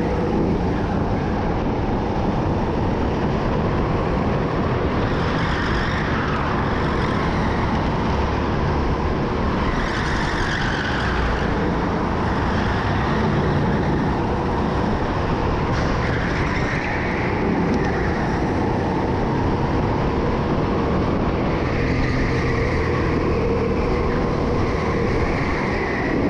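Racing go-kart running hard around an indoor track, its pitch rising and falling every few seconds as it slows for corners and accelerates out of them.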